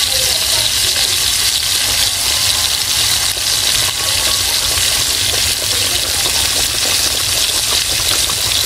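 Flour-coated chicken wings deep-frying in hot vegetable oil in a skillet: a loud, steady sizzle.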